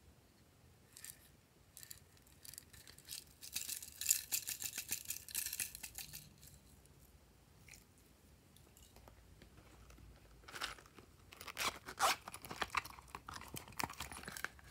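Rapid, crisp crackling and clicking as small plastic toys and decorations are handled over a tray of slime. It comes in two spells, one around four to six seconds and another from about ten and a half seconds almost to the end, with quieter handling in between.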